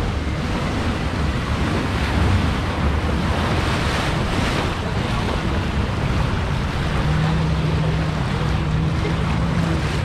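Rushing, splashing white water of a ride's rapids churning around a round river raft, with wind buffeting the microphone. A low steady hum joins about seven seconds in.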